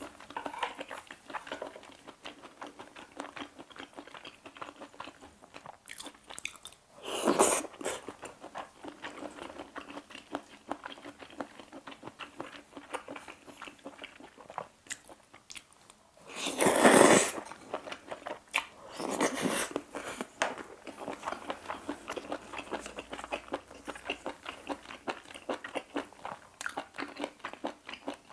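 Close-miked chewing and mouth sounds of a person eating seafood pasta: a steady run of small wet clicks and bites, with a few louder, noisier sounds about a second long, near 7 s, near 17 s and again near 19 s.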